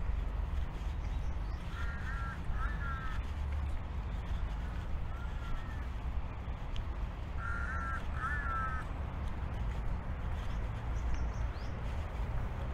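A crow cawing: two quick pairs of harsh calls several seconds apart, with a fainter call between them, over a steady low rumble.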